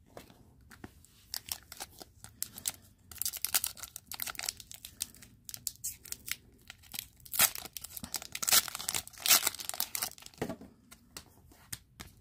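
Crinkly plastic hockey-card packaging being handled and torn, in irregular bursts of rustling and crackling.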